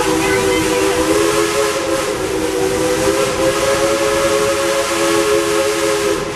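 Steam locomotive's chime whistle blowing one long blast, several notes sounding together and held steady, cutting off near the end, over the running noise of the train.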